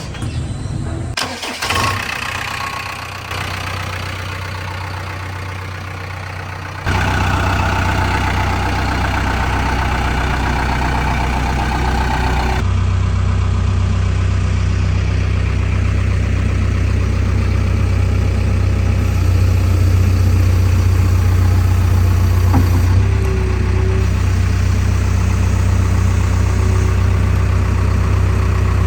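Heavy diesel engine running steadily, with a sudden jump in loudness about seven seconds in.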